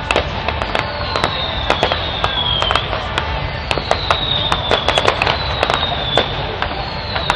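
Fireworks going off: a dense, irregular scatter of sharp bangs and crackles, with several high whistles that fall in pitch, each lasting about a second.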